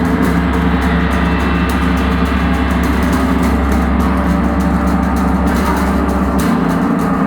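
Gong played continuously in a sustained wash: a loud, steady roar of many overlapping tones. The deepest hum drops away about six and a half seconds in.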